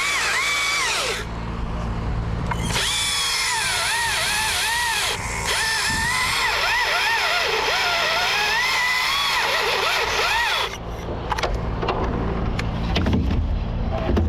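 Husqvarna T542i XP battery chainsaw cutting: its high motor whine dips in pitch again and again as the chain loads in the wood and recovers between cuts. A steady low machine hum runs underneath. About ten and a half seconds in the saw stops and scattered knocks follow.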